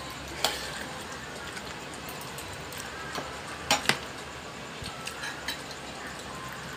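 Spoons and dishes clinking while eating: a few scattered light clinks, the loudest two close together a little before the middle.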